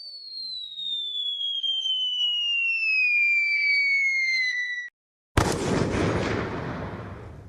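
Cartoon falling-bomb sound effect: a long whistle that slides steadily down in pitch for about five seconds, a short gap, then a sudden explosion that fades away.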